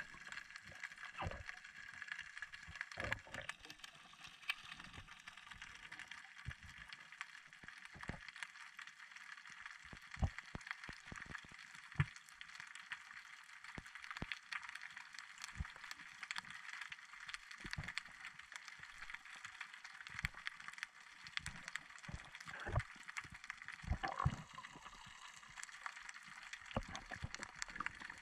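Faint underwater ambience picked up through an action camera: a steady hiss scattered with many irregular sharp clicks and crackles.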